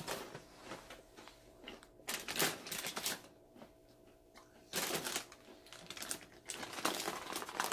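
Foil snack-chip bags crinkling as they are pulled out of a bin and handled, in several separate bursts of crackly rustling.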